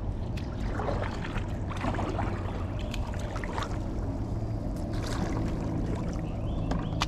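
Kayak paddle strokes dipping and splashing in river water, a stroke about every second, over a steady low rumble.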